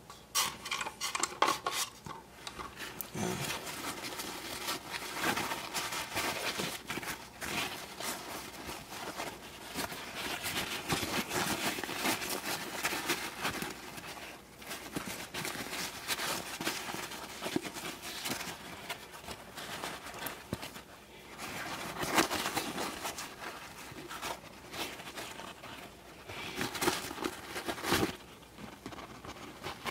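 Paper towel rustling and crinkling as small parts are handled and wiped dry, with frequent light clicks and clinks of small metal and plastic parts.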